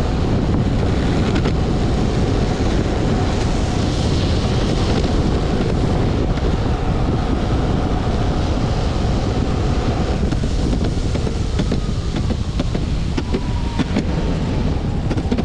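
Max 4 Pro hub-motor electric skateboard rolling over city asphalt at speed: steady wheel rumble and wind buffeting the board-mounted microphone. In the second half a faint whine slowly falls in pitch, and near the end there are a few sharp knocks from bumps in the road.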